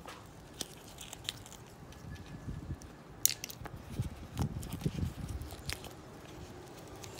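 Silicone mold being flexed and pressed by fingers to release cured resin pieces: scattered sharp clicks and crackles as the resin pulls away from the silicone, with a low rubbing handling noise strongest in the middle.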